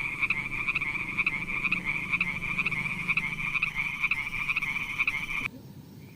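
Frog calling in a long run of rapid, evenly repeated croaks, about four to five a second, which cuts off suddenly near the end.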